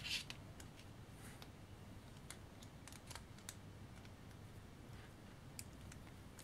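A louder sharp clack right at the start, then faint scattered small clicks and ticks of a precision screwdriver bit seating in and turning the tiny screws that hold a GoPro Hero5 Session's circuit board.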